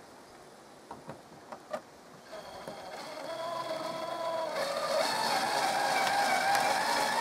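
Cordless drill-driver driving a screw into a wooden plank wall: a few handling clicks, then about two seconds in the motor starts whining. The whine rises in pitch and gets louder, stepping up about halfway, and runs on steadily.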